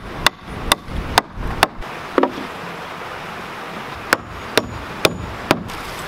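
Claw hammer striking a weathered barn-wood board: five sharp blows about two a second, a pause of nearly two seconds, then four more.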